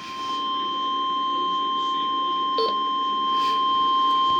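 Weather radio alert tone: a steady single beep-like tone of about 1 kHz, the 1050 Hz warning alarm tone that announces a severe weather alert, heard through a weather radio receiver's speaker.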